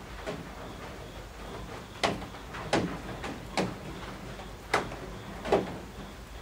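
Rain falling steadily on a roof, with heavy drops from the eaves landing in sharp, irregular knocks, about six of them in the second half.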